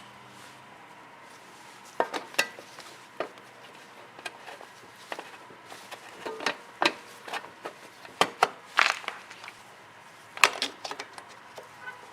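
Irregular clicks, clinks and knocks of small hard parts and hand tools being handled and set down, the loudest about two seconds in, near nine seconds and again about ten and a half seconds in.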